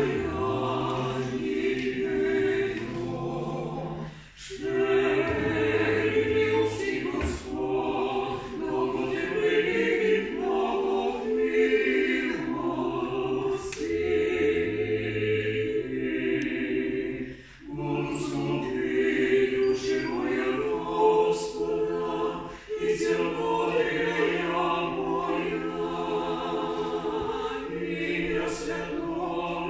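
Small choir singing a cappella, holding long notes in phrases, with brief breaks between phrases about four seconds in and twice more in the second half.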